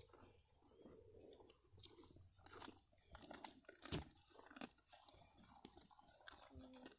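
Cattle chewing close by: faint, irregular crunching and clicks, with one sharper click about four seconds in.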